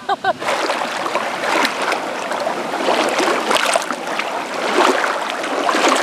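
Small lake waves washing up and splashing over a shore of shells and pebbles, a steady rushing wash.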